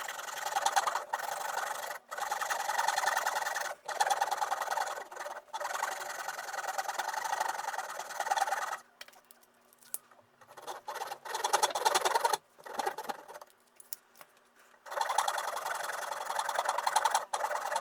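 A hand tool cutting and shaping a piece of azalea wood, a scratchy rasping in long runs broken by brief pauses. In the middle it becomes short, irregular strokes, then runs steadily again near the end.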